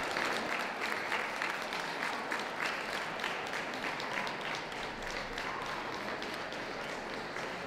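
Audience applauding steadily, easing off slightly toward the end.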